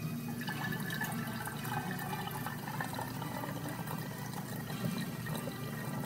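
Pomegranate juice poured in a stream from a glass coffee carafe into a glass kombucha bottle, trickling and splashing as the bottle fills. The pouring begins about half a second in.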